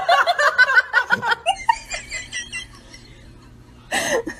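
A person laughing in quick, choppy bursts that die away after about a second and a half. A different sound cuts in abruptly near the end.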